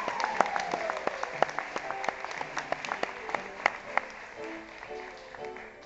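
Theatre audience clapping for a curtain call, over music; the clapping thins out near the end.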